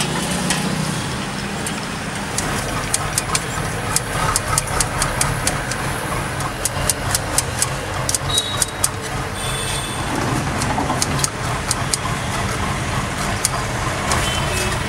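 Knife chopping green capsicum on a cutting board: rapid sharp knife strikes, several a second, over a steady low rumble.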